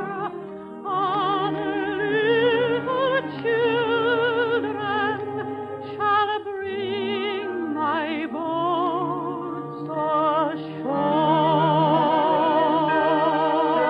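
A soprano sings long held notes with a wide vibrato over instrumental accompaniment, in phrases broken by short pauses, closing an operatic-style song.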